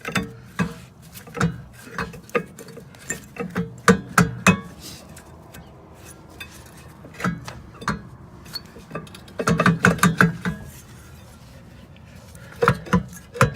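Hand tools and steel brake parts clinking and knocking against each other in scattered sharp clicks, with a quick run of clicks about nine and a half to ten and a half seconds in.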